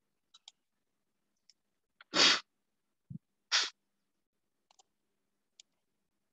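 A computer mouse clicks a few times, some of them quick double clicks. Two short, loud breathy bursts from a person come about two and three and a half seconds in, with a dull low thump between them.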